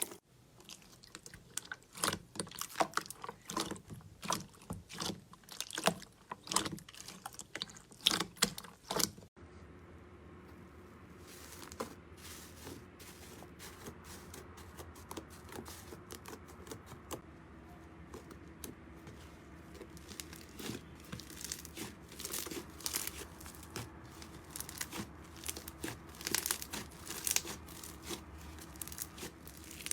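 Hands squeezing and pressing slime, making dense crackling clicks and pops. After a cut about nine seconds in, quieter squishing and clicking continue over a faint steady hum.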